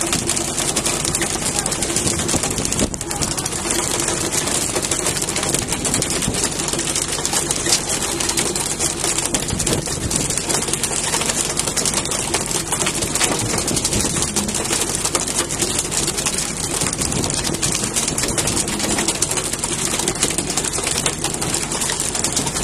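Fishing boat at sea: a steady, continuous noise of the boat's engine and rushing water, with faint voices in the mix.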